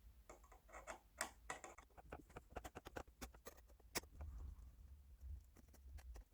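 Faint, irregular clicks and ticks of a Phillips screwdriver undoing the screws of an iMac's memory access door.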